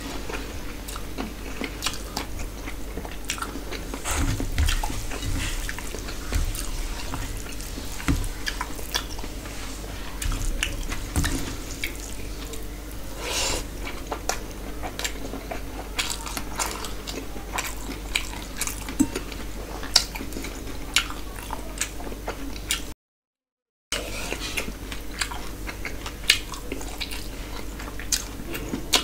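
Close-miked eating with the hand: a man chewing and smacking on mouthfuls of rice and curry, with many short sharp mouth clicks and the squish of fingers mixing rice on the plate. A low steady hum lies underneath, and the sound cuts out completely for about a second near the end.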